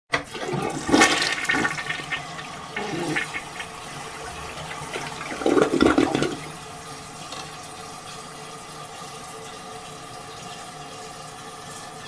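Pull-chain toilet cistern flushing: loud rushing water about a second in, a second loud surge around six seconds in, then a steady hiss as the cistern refills.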